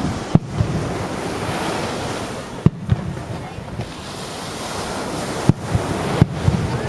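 Fireworks going off: several sharp bangs in small clusters a few seconds apart, over a steady rushing wash of surf and wind on the microphone.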